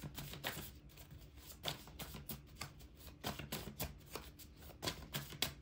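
A deck of tarot cards being shuffled by hand: an irregular run of quick, papery flicks and taps.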